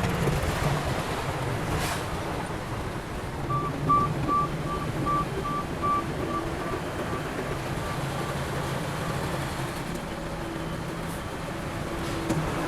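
Heavy construction machine's engine running steadily, with a reversing alarm beeping about two to three times a second for several seconds before fading out.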